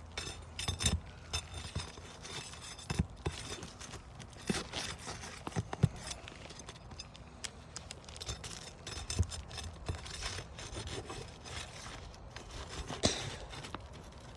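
Flat metal pry bar scraping and clicking against asphalt shingles as roofing nails are worked loose, with irregular sharp knocks and clinks scattered among the scraping.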